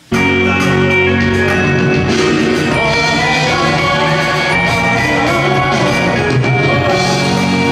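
Band music with singing and guitar, starting abruptly and running at a steady loud level.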